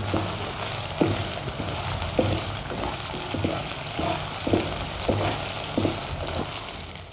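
Boneless chicken pieces sizzling in hot oil in a nonstick pan, being stirred with a wooden spatula that knocks and scrapes against the pan about twice a second. The sound fades out near the end.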